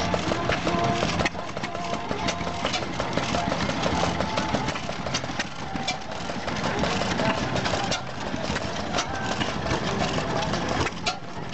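1923 Ruston Hornsby IP 7 HP horizontal stationary engine running steadily, its flywheels turning.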